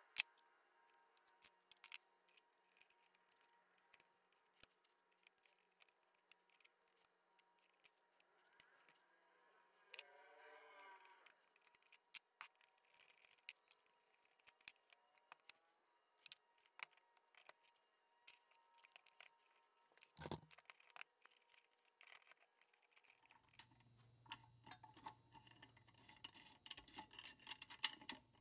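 Faint clicks and taps of small metal parts being handled and fitted into an air compressor pump's housing, with one duller knock about two-thirds of the way in. A low steady hum comes in near the end.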